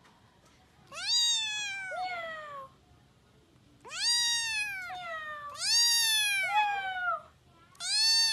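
Gray kitten meowing four times, each meow rising and then falling in pitch, the first about a second in.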